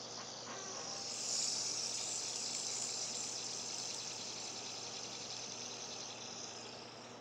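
Red fidget spinner's bearing whirring as it spins between the fingers: a steady high hiss that swells about a second in and then slowly fades as the spinner loses speed.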